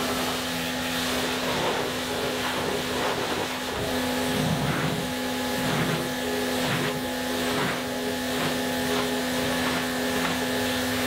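Pressure washer spraying water onto a car's hood and windshield: a steady hiss of spray with a steady hum underneath.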